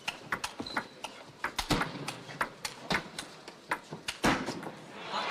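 Table tennis rally: the celluloid ball knocks off the rubber bats and the table in a quick, irregular run of sharp clicks. Crowd noise rises near the end as the point finishes.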